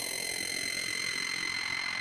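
Elektron Analog Four/Keys analog synthesizer sounding a noisy preset: a steady hiss and rumble with a high held tone on top, and a slow falling sweep through the noise.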